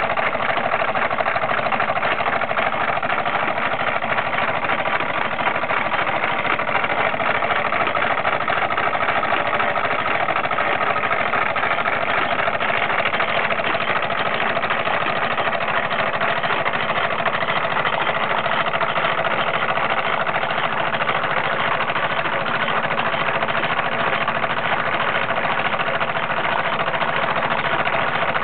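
Bowman M101 (Hobbies Lion) live-steam toy stationary engine running steadily in steam, together with the belt-driven line shafting and small models it powers: an even, continuous mechanical running noise that holds the same level throughout.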